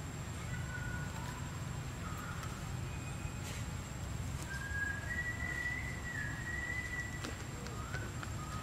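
Thin whistled animal calls over a low steady rumble: a few short, flat whistles, then one long steady whistle held for about two seconds in the middle.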